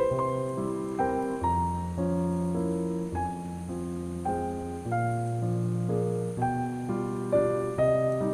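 Slow, gentle piano music: a melody of single notes over held bass notes.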